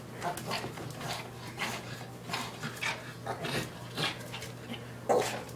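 Yorkshire terrier making a run of short pants, whimpers and snuffles, with a louder yip about five seconds in, while straining after a treat stuck out of her reach.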